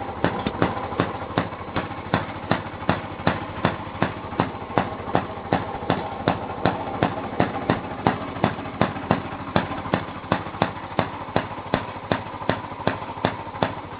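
Single-cylinder gas engine of an early Maytag Model 43 washing machine running steadily, firing in sharp, evenly spaced pops about three times a second over a steady mechanical whir.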